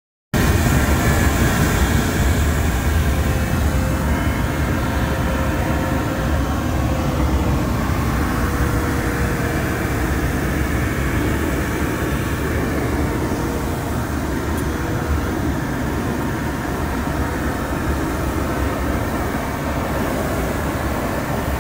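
Steady rush of air past the canopy, heard inside the cockpit of a Twin Astir two-seat glider in flight, with a low rumble underneath. A faint steady tone sits in the noise through the middle stretch.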